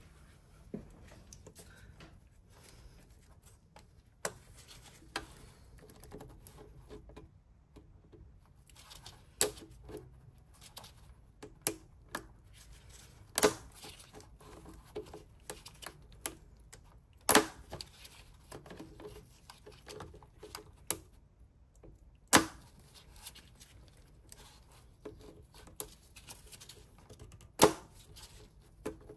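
Irregular sharp clicks and knocks of hand tools and metal and plastic parts being handled while coolant hose clamps and the coolant flange are worked loose in an engine bay, with about ten louder knocks among fainter ticks.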